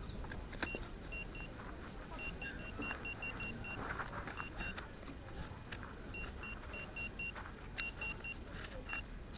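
Metal detector beeping in short rapid trains of the same high tone, starting and stopping as it passes over a target in the ground, with clicks and scraping of soil between. The target turns out to be melted lead.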